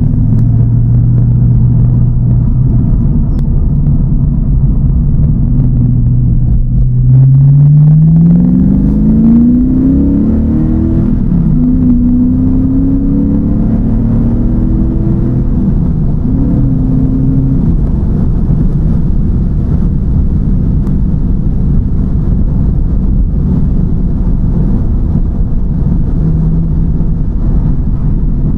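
TVR Chimaera's tuned 4.65-litre V8 (race cam) under way: a steady engine note, then about seven seconds in the pitch climbs as it accelerates, dips and climbs again, and then settles into a steady rumble with road noise.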